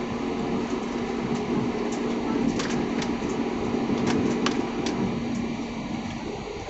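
Jet airliner cabin noise while taxiing: a steady engine and air-conditioning drone with one held low hum, and scattered light clicks and rattles from the cabin.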